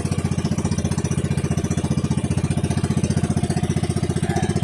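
Small fishing boat's (bangka's) engine running steadily at an easy pace, with a rapid, even chugging beat.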